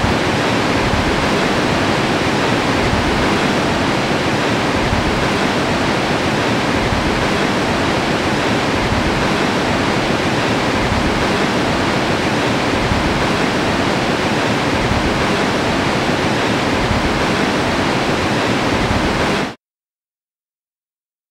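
Steady, loud rush of water that cuts off abruptly to silence near the end.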